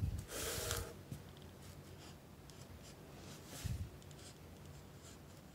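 X-Acto knife blade scoring a curved cut into a peel-and-stick vinyl tile: a few short scratchy strokes, the loudest about half a second in.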